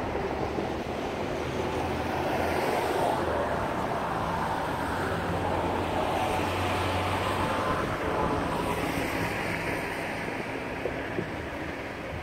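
Traffic crossing a highway bridge: engine hum and tyre noise swelling about two seconds in and easing off near the end. Under it is a steady rushing noise of wind and fast-flowing floodwater.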